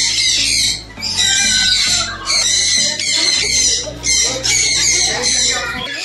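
Large parrots screeching: several long, harsh, loud screeches with short gaps between them. Background music with low sustained notes plays underneath.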